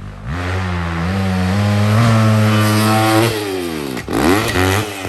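Dirt bike engine pulling hard under load, its pitch holding and slowly climbing for about three seconds, then dropping as the throttle closes. A short sharp rev follows about four seconds in, then it falls off again. The rider feels the engine isn't giving full power through the pull.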